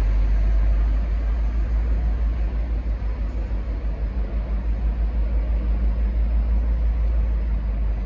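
Diesel engine running at idle: a loud, low rumble that starts to throb rapidly and evenly about a second in.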